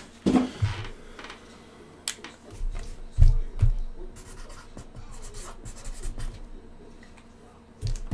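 Cardboard cases being handled and shifted on a table: cardboard scraping and rubbing, with a few short taps and dull thumps, the strongest about three seconds in and again near the end.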